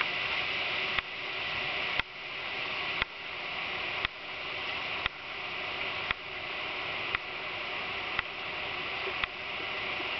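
Steady hiss of hurricane rain and wind, picked up by a compact camera's built-in microphone, with a sharp click about once a second; after each click the level dips and builds back up.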